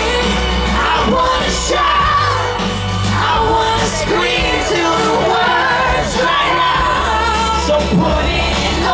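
Loud live pop music: a wavering sung melody over a steady, heavy bass backing.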